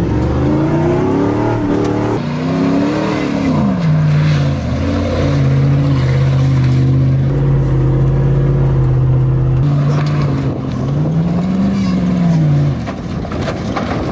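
Beater 4x4 pickup truck's engine accelerating hard, its pitch climbing and then dropping about three seconds in, holding steady for several seconds, then rising and falling once more near the end.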